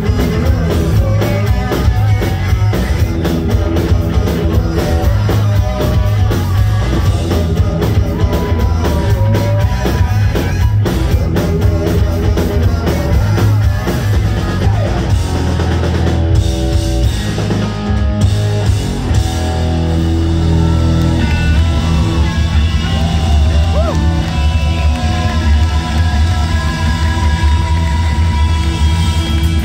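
Live rock band playing loud through a club PA: drum kit, electric guitars, bass and some singing. About 16 seconds in the drums drop out briefly before the full band comes back in.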